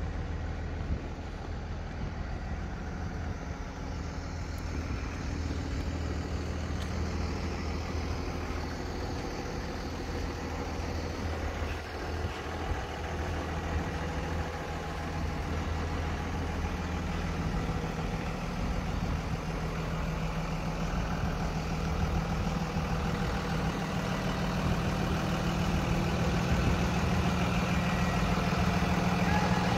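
Blue Bird school bus engine idling steadily, growing gradually louder toward the end.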